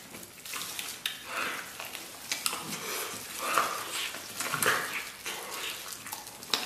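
Close-up eating sounds: wet chewing and smacking as soft, gelatinous red-braised beef trotter is bitten and torn from the bone. The noises come irregularly, with a sharp click near the end.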